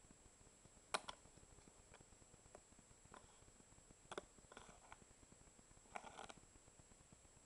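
Near silence with a few faint clicks and crackles of stiff clear plastic being pressed and flexed by fingers, the sharpest about a second in and short clusters around four and six seconds in, over a faint steady high-pitched whine.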